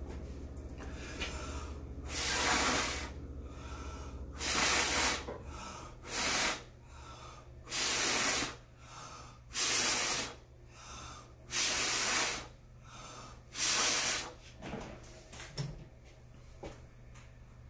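A person blowing hard through pursed lips onto wet acrylic pour paint on a canvas to push it across the surface: about seven strong puffs of rushing breath, each about a second long, one every second and a half to two seconds. A few faint taps follow near the end.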